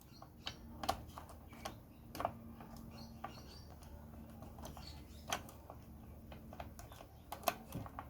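Scattered small clicks and taps of plastic and metal latch parts being handled as the door latch pin of a washing machine is worked into place, over a faint steady hum.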